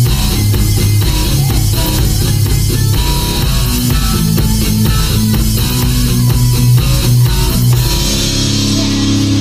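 Background rock music with guitar and drums, played at a steady loud level.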